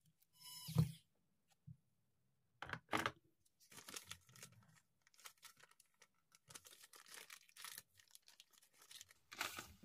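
Clear plastic wrapping around a replacement phone back cover crinkling and rustling in irregular bursts as it is handled. Near the start, a short squeak and a soft knock.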